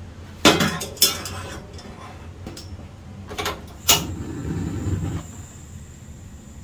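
A stainless steel pot is set down on a gas stove's burner grate with two sharp metal clanks. About four seconds in, the knob is turned: the igniter clicks and the gas catches, with about a second of low rushing sound from the burner as the flame lights.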